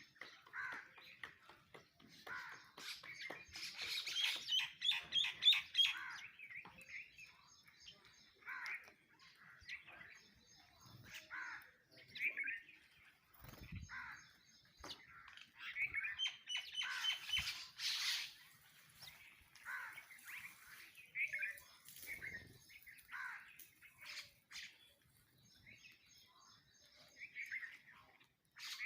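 Sparrows chirping again and again, with harsher squawks of mynas mixed in; twice a quick run of high, rapid notes stands out, and a couple of dull thumps come in between.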